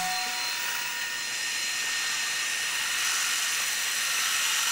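Bridgeport milling machine's end mill cutting 7075 aluminum: a steady high-pitched whine of spindle and cut over a hiss.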